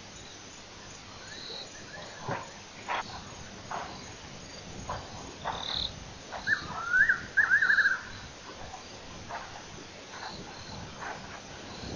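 Evening wildlife chorus: a steady hiss of insects with scattered short calls, and a few quick trilling calls about six to eight seconds in.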